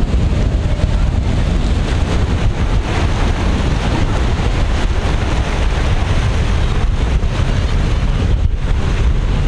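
Strong wind buffeting the microphone, over rough sea surf breaking steadily.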